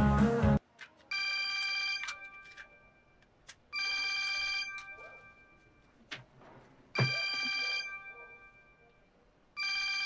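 Smartphone ringing with an incoming call: four electronic ring bursts, each about a second long, a couple of seconds apart. Loud party music with guitar cuts off suddenly just before the first ring.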